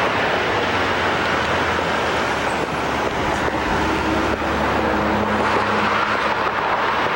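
Street traffic noise, with a motor vehicle's engine humming steadily through most of it and fading out about five and a half seconds in.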